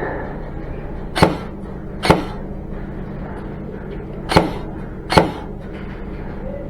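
Airsoft gun firing four single shots, in two pairs a little under a second apart, over a steady low hum.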